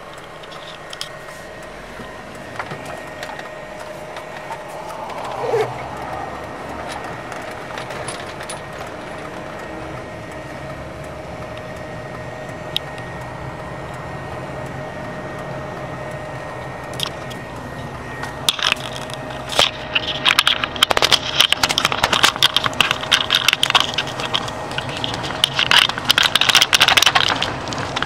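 Steady vehicle rumble with a faint steady tone over it. From about two-thirds of the way in, a dense, irregular crackling clatter of many small impacts takes over and is the loudest sound.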